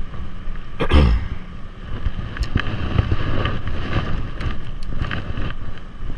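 Wind rumbling on the microphone over a rod and reel working a lure on the water, with a quick whoosh falling in pitch about a second in, then scattered light clicks.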